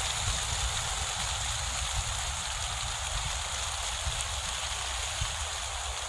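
Steady rain falling on leaves: an even hiss with a low rumble underneath.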